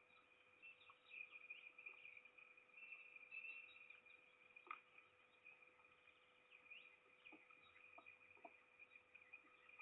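Faint songbird chirps and quick twittering calls, over a steady faint whine, with a few light ticks in the second half.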